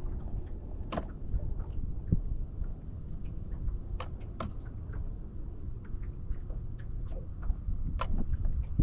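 A handful of sharp light clicks and taps, about a second in, twice around four seconds in and again near the end, over a steady low rumble of wind and water.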